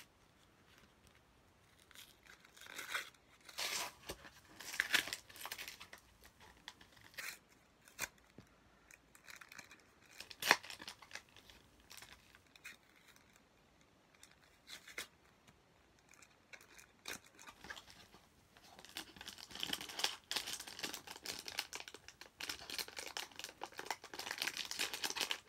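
Foil booster-pack wrapper being crinkled and torn open by hand: rustling in short bursts, a sharp click about ten seconds in, then denser crinkling over the last seven seconds.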